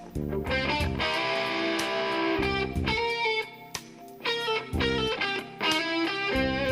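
Blues-jazz band music: electric guitar playing over bass and drums, with chord stabs that come and go.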